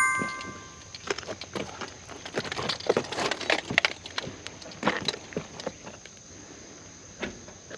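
Irregular footsteps and small knocks, loudest a few seconds in. The ringing tail of a chime fades out in the first second, and a faint steady high whine runs underneath.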